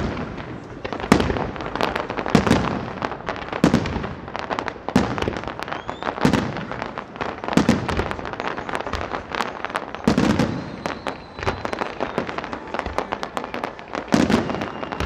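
Fireworks display: aerial shells bursting with a deep boom every second or so, over continuous dense crackling and popping.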